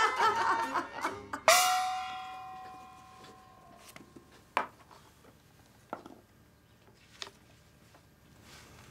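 A single musical note, struck once about a second and a half in and ringing out over about two seconds as a scene-change sting. Then a few faint clicks of small glass medicine vials handled on a wooden table.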